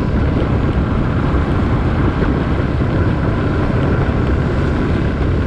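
Small Suzuki motorcycle being ridden at road speed: the engine runs steadily under heavy wind rumble on the microphone.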